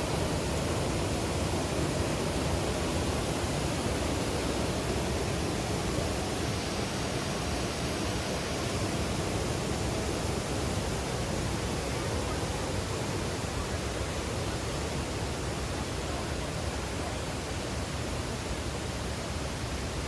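Kuang Si waterfall, water rushing steadily over the cascades.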